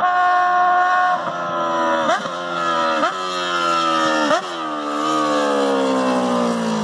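Honda CB650's four-cylinder engine with a loud exhaust, ridden hard through several quick gear changes, its pitch jumping at each shift and falling away over the last couple of seconds.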